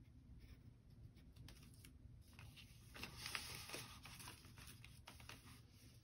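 Faint scratching of a pencil drawing on folded printer paper, with the paper shifted on its cardboard backing; a brief louder scratchy stretch comes near the middle.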